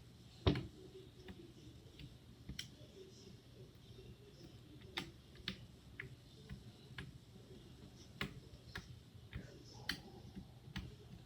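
Homemade glue slime being squeezed and poked by hand, giving faint irregular clicks and little pops, one louder about half a second in.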